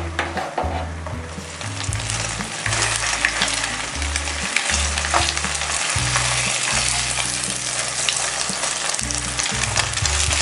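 Beaten egg frying in hot oil in a nonstick wok, sizzling steadily and growing louder about two seconds in. A plastic spatula scrapes and turns the omelette in the pan.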